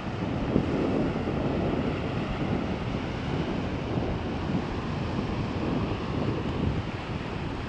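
Wind buffeting the microphone: a steady rushing noise with a low, fluttering rumble.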